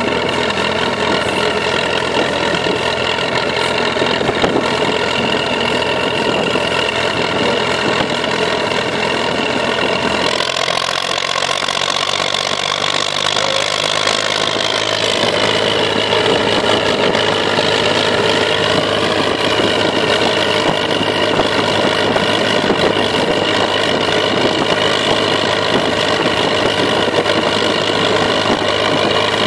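IMT 533 tractor's three-cylinder diesel engine running steadily as it drives. Its pitch rises briefly a little under halfway through, then eases back to a steady note.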